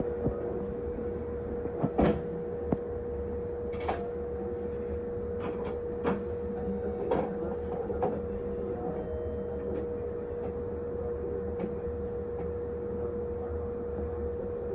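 Stationary Kintetsu electric train giving a steady hum and low rumble while a train on the next track pulls away alongside, with a handful of sharp clunks and clicks in the first half.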